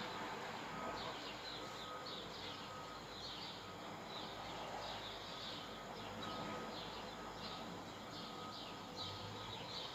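Faint chirping of small birds: a steady run of short, high, falling notes, several to the second.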